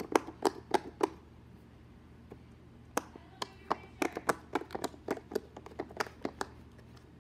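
Bubbles of a silicone pop-it fidget toy being pressed through by fingers, making sharp pops. There is a quick run of four or five pops in the first second, a pause, then a longer run of a dozen or more pops over the next few seconds.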